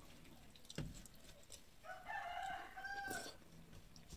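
A rooster crows once, a call of about a second and a half that drops in pitch at its end. A short click comes just under a second in.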